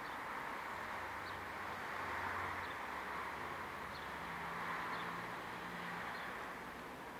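Steady outdoor background noise with a low hum, and faint short high chirps about once a second.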